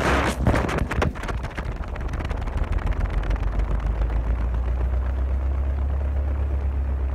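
Wind buffeting the microphone of a smartphone in free fall after dropping from an airplane. A few loud gusts hit in the first second or so, then a steady low rumble with a rapid flutter as the phone tumbles through the air.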